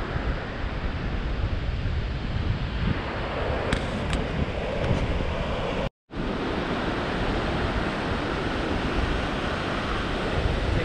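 Wind buffeting the microphone over the steady rush of ocean surf. The sound cuts out for a split second about six seconds in.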